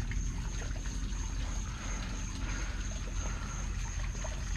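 Water trickling and dribbling steadily, over a low rumble, with a steady thin high-pitched whine throughout.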